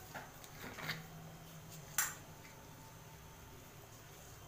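Faint kitchen handling noises, with a few soft knocks and one sharp click about two seconds in.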